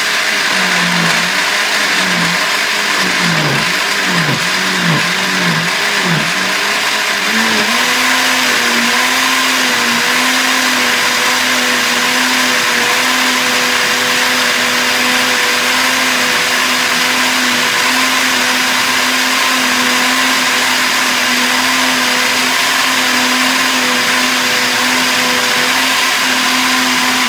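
Countertop blender motor running at high speed, pureeing leafy greens into a smoothie. For the first seven seconds or so its pitch keeps dipping and recovering as the blades catch chunks. It then rises a little and holds steady once the mixture has turned smooth.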